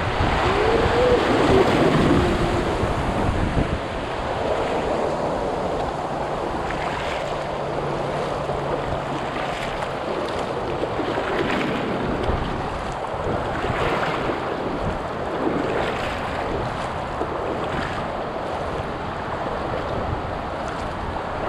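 River rapids rushing around an inflatable canoe, with wind buffeting the microphone. Faint splashes recur about every two seconds, in time with paddle strokes.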